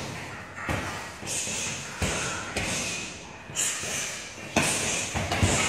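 Punches and kicks landing on a hanging heavy bag: a string of sharp thuds, one every half second to a second, each followed by a short hiss.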